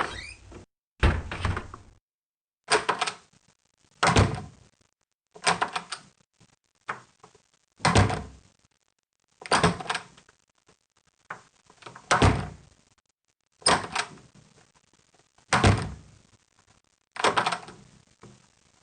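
A run of separate door sounds, doors shutting and banging, about a dozen of them one after another, each sharp and short and followed by a brief silence.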